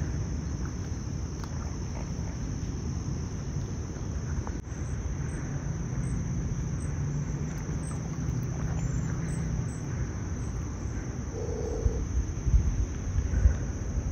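Steady high-pitched insect trill, like crickets, over a low rumble, with a brief low sound about eleven seconds in.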